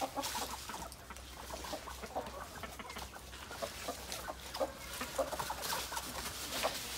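A small mixed flock of chickens, naked-neck birds among them, clucking in short scattered calls throughout.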